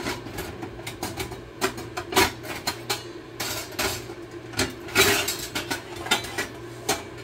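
Kitchen clatter: dishes, a pot and utensils knocking and clinking at an irregular pace, over a steady low hum.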